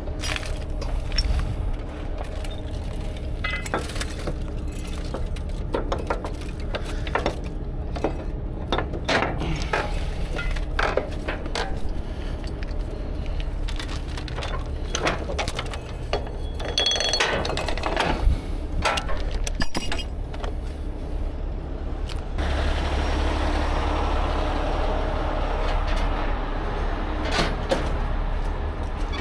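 Steel tow chain and hooks clinking and rattling in repeated short metallic knocks while the chain is handled around the burned truck's frame, over a steady low engine hum. About two-thirds of the way in, a louder steady rushing noise takes over.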